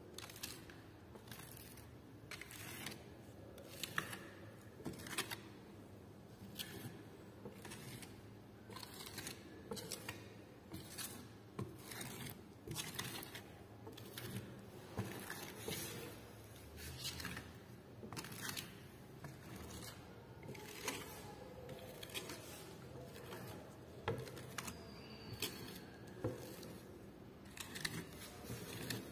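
Flat steel trowel scraping and clicking across a freshly coated decorative-paint surface in short, irregular strokes, about one or two a second.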